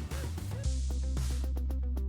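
Electronic background music with a steady beat and a heavy bass line that comes in about two-thirds of a second in.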